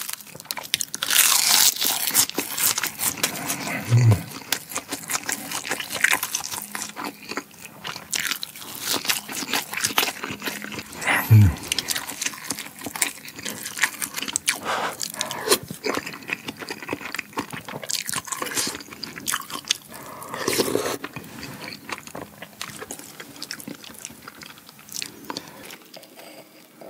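Close-miked eating sounds: crunching and chewing of rice wrapped in crisp roasted seaweed, with wet mouth sounds and sharp clicks of chopsticks and spoon against the dishes. Two low knocks, about 4 and 11 seconds in, the second the loudest.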